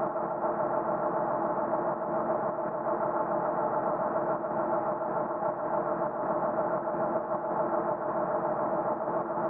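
Truck engine running at a steady speed: an even, unbroken drone with no change in pitch.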